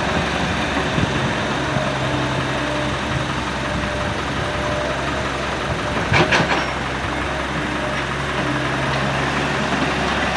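Excavator engine running steadily, with a brief loud clatter about six seconds in.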